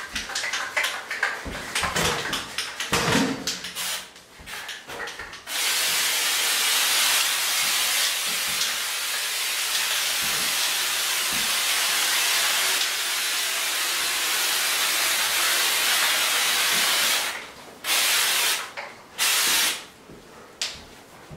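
Homax aerosol orange-peel wall texture spraying from the can in a long steady hiss of about eleven seconds, then in two short bursts. Before the spraying, a few seconds of rapid rattling and clicking.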